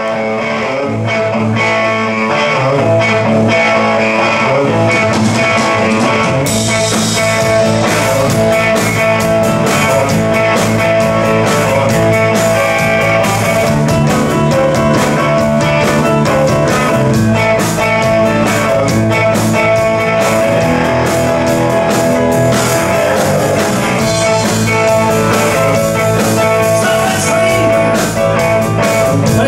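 Live blues band playing an instrumental opening on Telecaster-style electric guitar, bass guitar, drums and keyboard, without vocals. Drums and cymbals join about six and a half seconds in.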